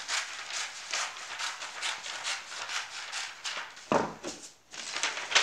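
Scissors snipping through kraft pattern paper, a steady run of crisp cuts about three to four a second. About four seconds in comes a louder rustle and bump as the paper is handled.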